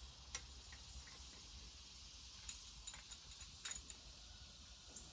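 Hand socket ratchet clicking faintly in short quick runs as the water pump bolts are tightened, with a single click near the start and bursts of clicks from about halfway through.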